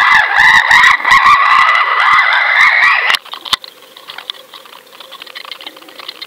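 Muffled whine and rushing heard through the waterproof housing of an underwater camera on a fishing line as the rig moves through the water. The whine edges slightly up in pitch, with scattered clicks, then cuts off suddenly about three seconds in, leaving faint water noise.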